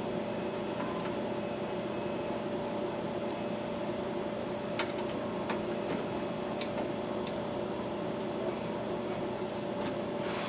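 A steady machine hum with one constant tone, like a running fan, with a few light clicks and taps about halfway through and again near the end.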